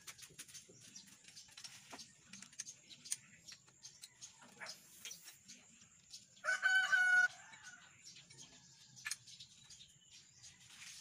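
Scattered light metal clicks and taps from parts of a manual transmission being handled, and about halfway through a single brief rooster crow, the loudest sound.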